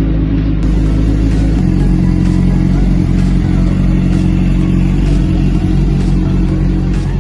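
Four-cylinder motorcycle engine running steadily, its note dropping a little about a second and a half in.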